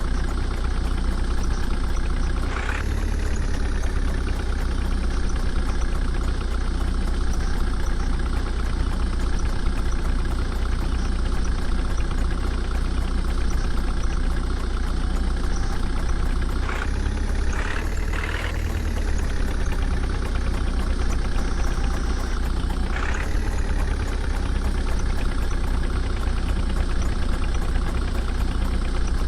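Diesel engine of heavy farm or earthmoving machinery running steadily, briefly revved and eased back about three times.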